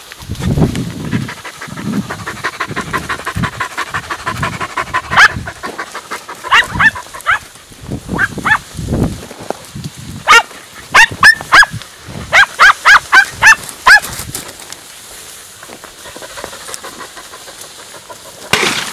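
Podenco Andaluz hounds giving tongue in a string of short, high, falling yelps, loudest in quick runs about ten to fourteen seconds in, after a fast run of lighter yips in the first few seconds. This is the cry a podenco gives when working or chasing a rabbit.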